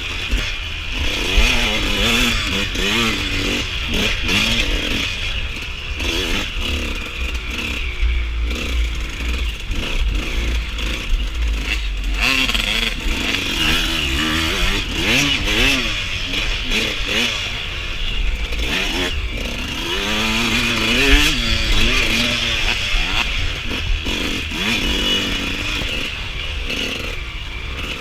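Suzuki RM125 two-stroke dirt bike engine revving up and down over and over as the throttle is worked on and off.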